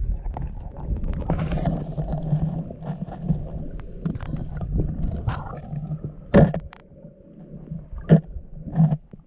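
Muffled rumble of water moving around an action camera's waterproof housing as it is carried underwater, with a few sharp knocks, the loudest two about six and eight seconds in.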